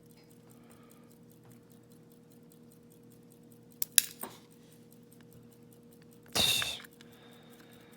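Small metal lock parts and tools being handled at a padlock: a couple of sharp clicks about four seconds in and a brief, louder metallic clink about six and a half seconds in, over a faint steady hum.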